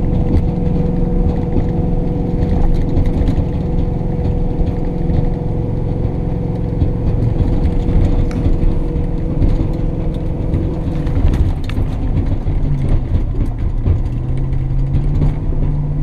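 A truck's engine and road rumble heard from inside the cab while driving, carrying a load of brush, with a steady engine hum. The engine note dips about twelve seconds in, then climbs again a few seconds later.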